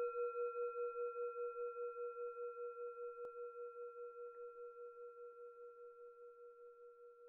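A single low, bell-like metallic tone rings on and slowly fades away, with a steady pulsing wobble about five times a second.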